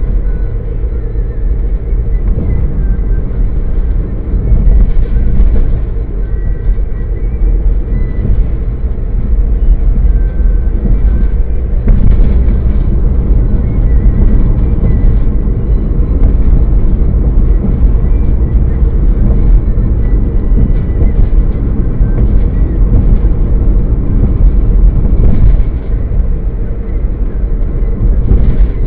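Car driving, with the steady rumble of road and engine noise heard from inside the cabin through a dashcam's microphone.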